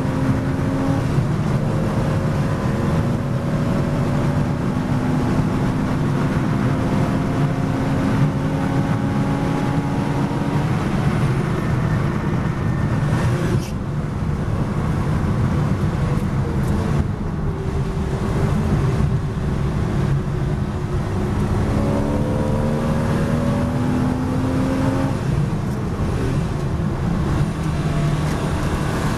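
Porsche Boxster S race car's flat-six engine heard from inside the cockpit at speed on track. The engine note climbs, breaks and resumes at gear changes, falls away as the driver eases off about halfway through, then climbs again, over steady road noise.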